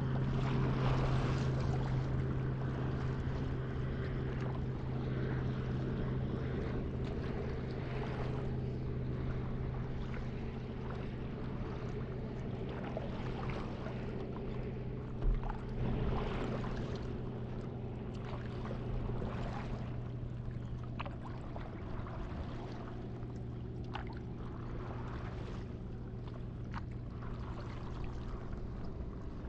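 Water lapping and sloshing close to the microphone at the surface, from a paddle board on calm water, over a steady low hum. There is a single low bump about halfway through.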